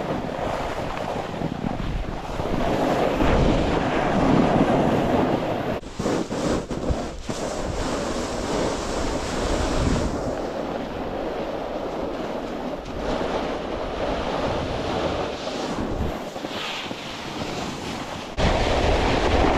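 Snowboard sliding and scraping over snow while riding downhill, with wind rushing on the microphone. The sound changes abruptly about six, ten and eighteen seconds in.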